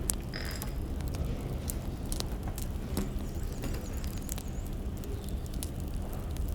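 Firewood burning in a fire, crackling with irregular pops and snaps over a steady low rumble.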